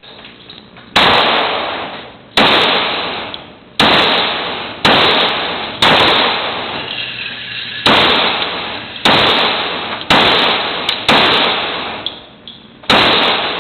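FN Five-seveN pistol firing 5.7x28mm rounds, about ten single shots at an unhurried, uneven pace one to two seconds apart. Each shot is followed by a long echoing decay in the indoor range.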